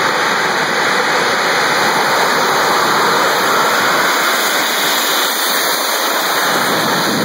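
Nitrous oxide and asphalt hybrid rocket motor on a pickup truck firing: a loud, steady rushing noise.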